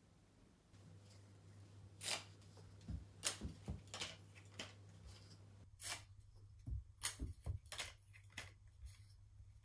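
A handmade paper-cup cat toy on a stick rustling and tapping as it is waved about, in a string of short, sharp sounds, over a faint low hum.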